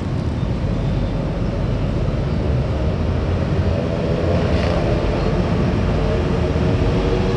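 Large diesel bus engine running in a low rumble, its engine drone growing louder and clearer from about halfway through.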